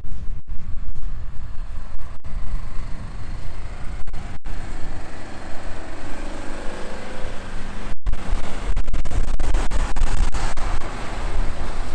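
Toyota Land Cruiser's 3.0-litre turbodiesel engine working hard under load as the SUV ploughs through deep snow with its wheels spinning. The sound drops out for an instant a few times.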